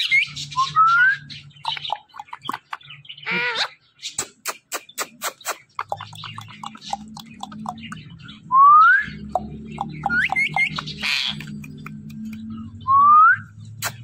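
Rose-ringed parakeet giving several short rising whistles and two harsh squawks, among a patter of sharp clicks.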